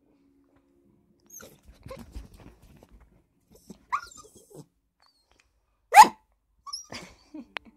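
Puppy barking: a short high bark about four seconds in and a louder, sharper bark about two seconds later, with soft rustling and shuffling before them.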